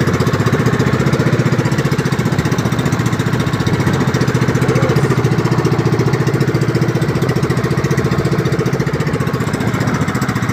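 Engine of a motorized outrigger fishing boat (bangka) running steadily while the boat is underway, with a fast, even chugging pulse.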